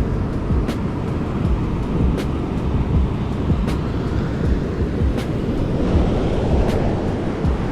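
Car driving on the road: a steady low rumble of engine and tyres, with a faint click about every second and a half.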